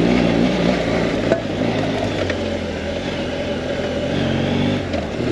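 BMW F800GS parallel-twin engine running at low, fairly steady revs, its pitch shifting slightly, with a single brief click about a second in.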